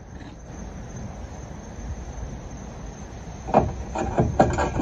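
Metal electrical-conduit pole being worked down through a dock's side leg holder into the mud, giving a quick run of short knocks and scrapes of metal against the bracket and deck. These begin about three and a half seconds in, after a quiet stretch.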